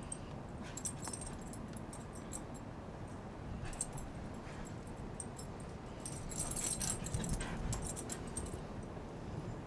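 A greyhound's collar tags jingling in short clusters of high clinks as the dog moves about in the snow, most busily in the second half, over a low rumble of wind on the microphone.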